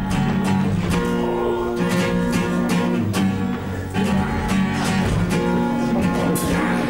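Music led by a strummed acoustic guitar, with sharp strokes running through it.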